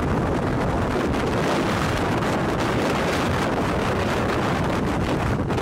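Strong wind from a close tornado buffeting the microphone: a loud, steady rushing noise.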